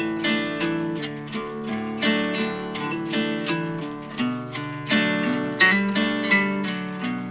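Background music: a plucked-string instrumental in the style of a gently strummed acoustic guitar, with notes plucked at a regular pace.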